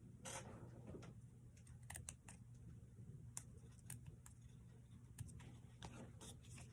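Faint, irregular snips of small craft scissors trimming paper scraps, over a low steady hum.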